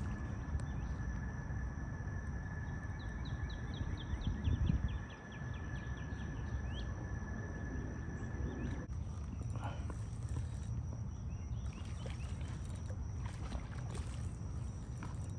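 Outdoor riverside ambience: a steady low rumble of wind and water on the microphone, swelling louder about four seconds in. Over it runs a rapid chirping trill of about five short chirps a second, from roughly three to seven seconds, and a steady high whine that cuts off at about nine seconds.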